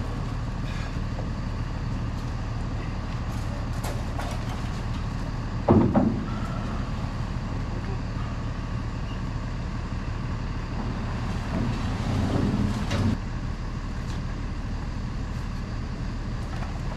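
Truck engine idling steadily. A sharp knock about six seconds in is the loudest sound, and there is a louder, rougher stretch lasting about a second and a half two-thirds of the way through, while wooden roof trusses are being handled.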